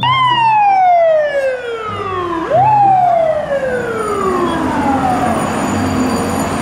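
FDNY ladder truck siren wailing: a slowly falling tone that jumps quickly back up about two and a half seconds in and winds down again.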